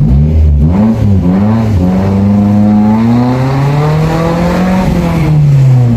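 Maruti Suzuki Zen car engine through a modified exhaust, revving: quick blips of the throttle in the first second, then the engine note climbs steadily for about three seconds and drops away near the end.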